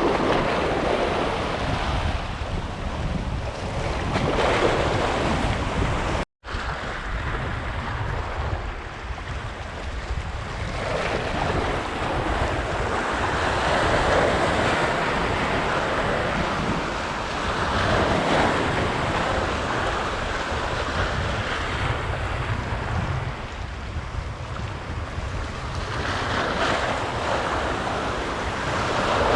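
Sea waves washing against the shore, swelling and easing every few seconds, with wind rumbling on the microphone. The sound cuts out for a moment about six seconds in.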